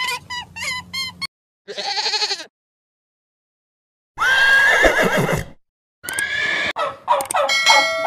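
A string of separate animal calls cut one after another: a quick run of short repeated calls in the first second, a brief call, a silent gap, then a horse neighing about four seconds in, followed by more short calls near the end.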